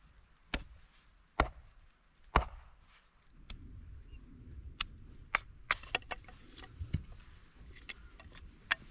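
Firewood being chopped: three sharp strikes about a second apart, followed by a run of lighter knocks and clicks.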